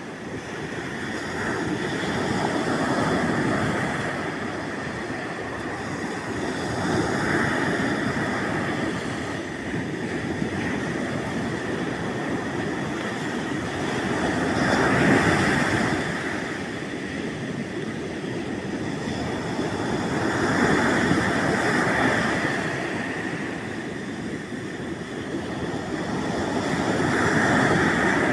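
Sea waves washing onto the shore, the surf swelling and falling away in a slow rhythm, about five surges roughly six seconds apart.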